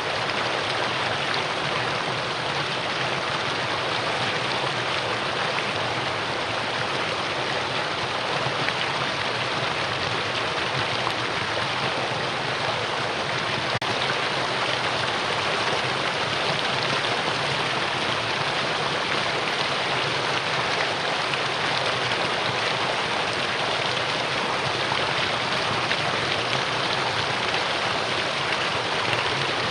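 Mountain stream rushing steadily over rocks: a constant, even rush of water.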